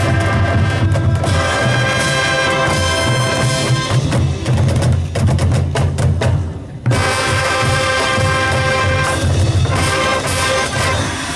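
High school marching band playing: brass sustained chords over the drumline's steady beat. About halfway through the brass drops out and only the drums play for roughly two seconds, then the full band comes back in.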